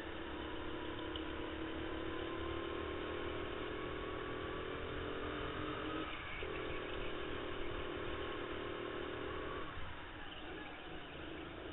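Racing go-kart's motor heard from onboard at speed, its pitch slowly climbing. It drops briefly about six seconds in and again near ten seconds, with the kart turning through a corner.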